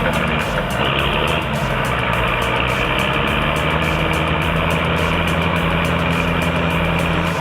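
Heavy engine running steadily at a constant speed, with a low, even drone.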